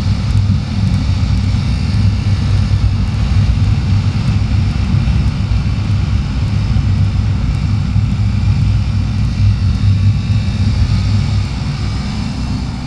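Supermoto motorcycle engine running steadily through a long wheelie, with wind rushing over the microphone. The level drops a little near the end.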